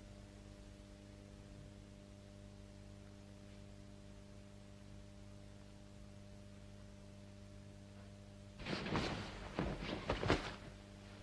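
A faint steady low electrical hum, then about 8.5 s in a few short, irregular breathy gasps and sighs from a person.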